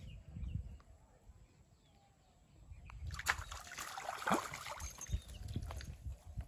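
A hooked fish thrashing and splashing at the water's surface on a rod and float line, starting about three seconds in and lasting a few seconds.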